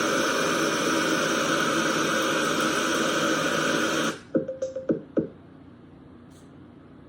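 Untuned FM radio static hissing loudly from the alarm clock's speaker, cut off suddenly about four seconds in, followed by a few short clicks as its buttons are pressed.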